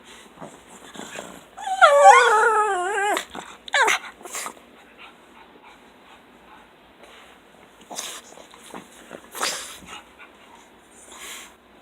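A pug's yodelling whine: one long wavering call about two seconds in, sliding down in pitch over about a second and a half, then a short yelp. Quieter snuffling and a few short noisy breaths follow.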